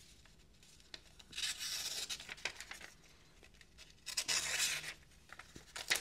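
A very sharp Wharncliffe slip-joint blade (Jack Wolf Feel Good Jack) slicing through a sheet of paper: two soft slicing strokes, the first about a second and a half in, the second at about four seconds.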